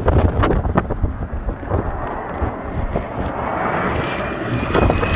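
Turbofan engines of a Republic Airways Embraer regional jet on final approach, coming in low overhead: a broad rumble with a thin whine that sets in about two seconds in and rises slightly in pitch as the jet nears. Wind buffets the microphone, with several sharp gusts in the first second.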